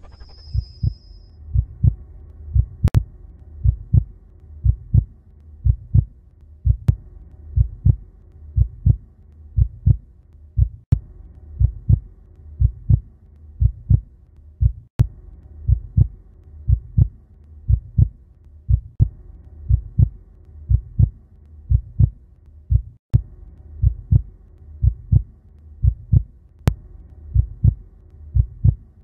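Heartbeat sound effect: steady, regular pairs of low lub-dub thumps over a faint steady hum, used as a tension cue.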